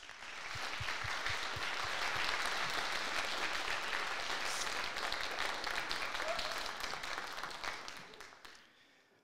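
Audience applauding, building up in the first second, holding steady, then fading out near the end.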